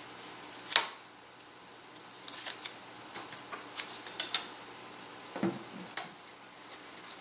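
Light clicks and taps of thin wooden sticks being handled and set down on a table, scattered with short quiet gaps. One sharper click comes near the start and a duller knock comes near the end.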